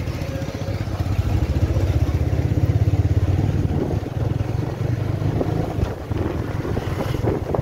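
Motorcycle engine running as the bike rides along, its exhaust pulsing rapidly and evenly.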